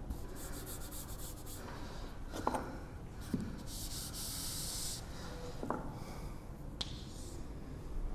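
Chalk and a hand working on a chalkboard: rubbing and scraping strokes across the board come in patches, with a few sharp chalk taps in between.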